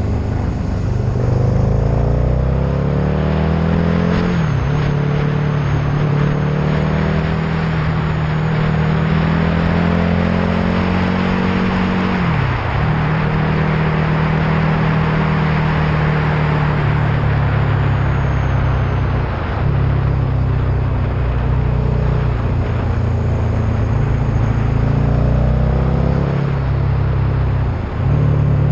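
Road vehicle's engine running at speed on an open road, its note climbing over the first few seconds and then dipping briefly about four times, over a steady rush of wind and tyre noise.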